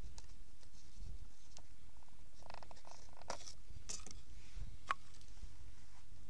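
Low steady rumble of wind on the microphone, with scattered clicks and rustles from handling the foam model plane. The sharpest single click comes about five seconds in.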